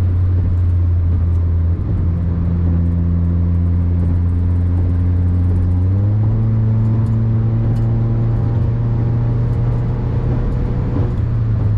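Tuned VW Polo GT TSI's 1.2-litre turbocharged four-cylinder engine and full-system exhaust with a Remus valvetronic muffler, running with a steady low drone while the car is driven. Its pitch rises a little about six seconds in as the revs climb.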